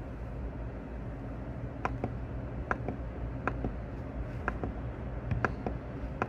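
Mechanical keyboard keys struck one at a time, starting about two seconds in: a sharp clack roughly every half second, over a low steady hum.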